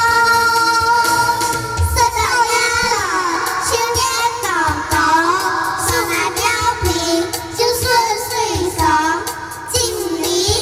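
Children singing a Hakka song in unison over recorded backing music: one long held note, then a gliding, melodic phrase.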